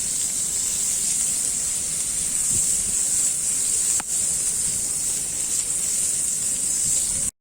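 Meat sizzling on a thick iron griddle, a steady high hiss with a single sharp click about four seconds in; it cuts off suddenly just before the end.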